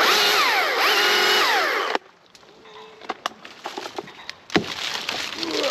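Chainsaw cutting through a walnut branch for about two seconds, its engine pitch dropping and rising as it works through the wood, then cutting off suddenly. Scattered knocks follow, then a sharp crack about four and a half seconds in and a spell of crackling wood and rustling.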